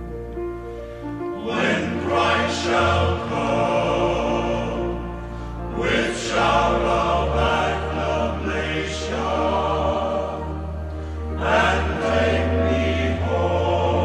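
Slow background music with a choir singing over held low bass notes that change every few seconds.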